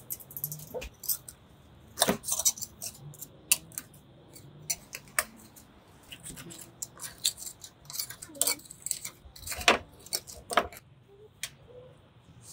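Close-up handling of a raw geoduck clam: irregular wet clicks, crackles and squelches as the skin is peeled from its siphon and a knife works between the meat and the shell on a bamboo cutting board.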